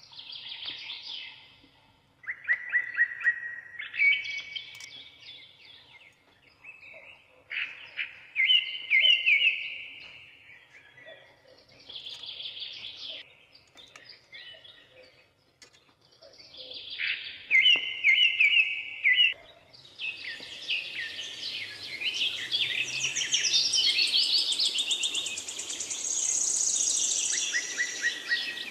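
Birds chirping and singing in short, repeated trilled phrases with pauses between them, turning into a denser, continuous chorus of higher chirps about two-thirds of the way through.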